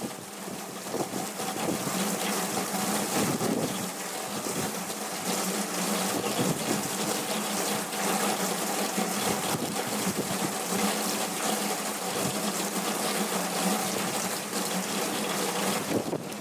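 Heavy hurricane rain pouring down with rushing, gushing water, a steady dense hiss. A faint low hum runs steadily beneath it.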